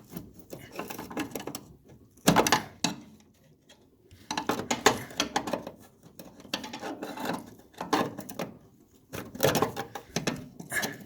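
Metal steering-column parts and hand tools clinking and knocking in irregular clusters as they are handled. The sharpest knock comes about two seconds in, and there are short quiet pauses around three and nine seconds.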